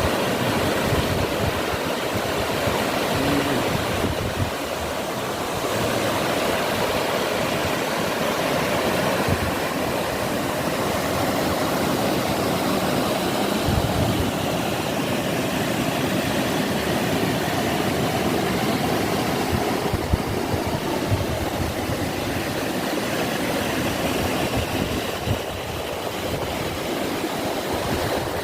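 Waterfall, the steady rushing noise of falling water.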